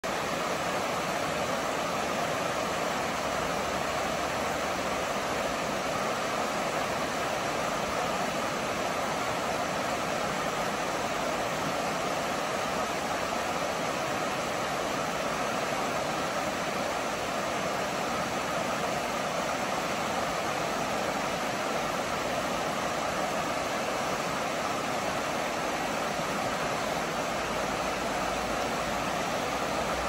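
River rapids rushing over rocks: a steady, unbroken rush of whitewater.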